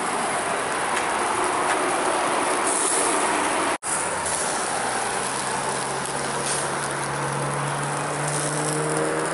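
Sausages sizzling on the grill of a small charcoal barbecue, a steady hiss. After a brief cut about four seconds in, a low steady hum joins underneath.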